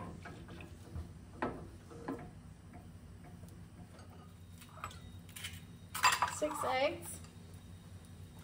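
Light knocks and clinks of kitchen bowls and utensils being handled, with a louder clatter about six seconds in.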